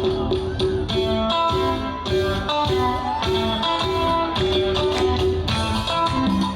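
Guitar-led music playing steadily, with plucked and strummed notes over a low beat.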